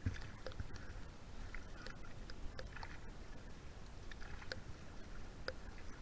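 Low rumble of wind on the microphone with scattered faint clicks, aboard a small outrigger boat on a river.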